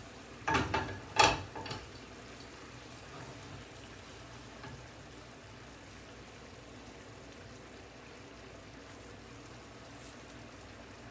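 Two sharp clatters of kitchenware about half a second and a second in, the second louder, then a steady soft sizzle of food cooking in a pan on the stove.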